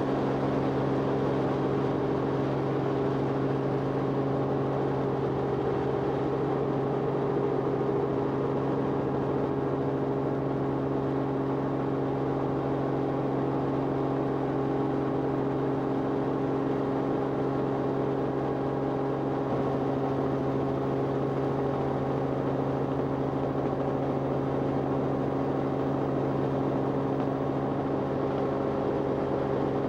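Aircraft engine and propeller or rotor noise heard inside the cabin: a steady drone with a constant hum.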